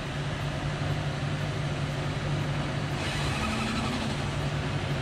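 1997 Ford Expedition's V8 engine idling as the truck creeps forward at walking pace, a steady low hum.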